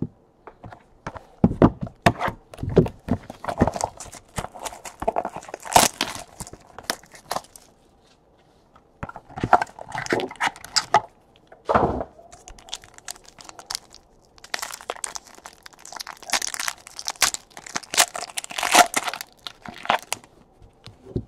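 A cardboard trading-card box is opened and the plastic-wrapped pack inside is torn open and crinkled. The crackling and rustling come in three stretches with short pauses between them.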